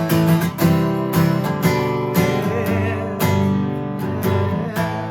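Acoustic guitar strummed in a steady rhythm, with a short sung "yeah" near the middle.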